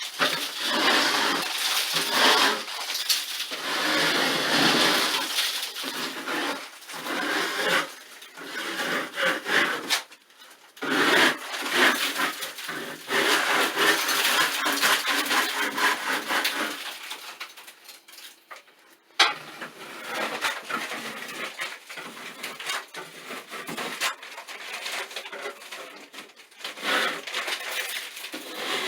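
Scraper scraping peeling paint and water-damaged texture off a ceiling: irregular runs of scratching strokes with brief pauses, and a single sharp knock about two-thirds of the way through.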